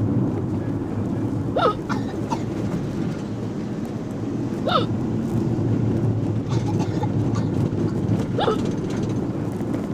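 A person hiccuping three times, about three seconds apart, each hiccup a short squeak that drops in pitch, over the steady low rumble of a moving bus.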